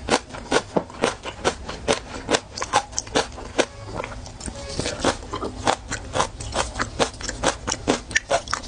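Close-miked chewing of crunchy raw seafood: crisp clicking crunches, several a second, with a brief rustle of plastic gloves about halfway.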